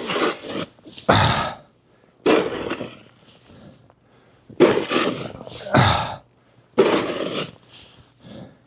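Snow shovel working through deep, heavy snow: about six rough scraping and scooping strokes, each under a second, with short pauses between.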